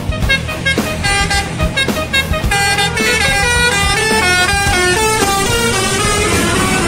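Musical multi-tone horn on an ANS intercity bus playing a quick melody of stepped notes, over the steady rumble of the bus's engine as it approaches and passes.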